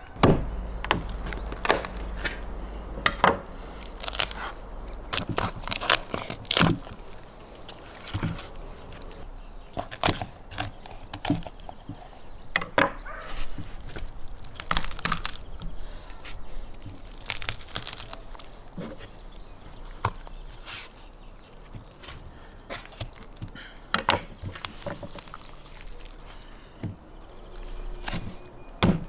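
A raw goose being cut up with a knife on a wooden cutting board: irregular knocks, taps and thuds of the carcass, knife and hands against the wood, scattered throughout.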